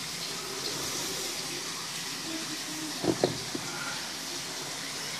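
Water running steadily into a tub of koi, with two brief knocks about three seconds in.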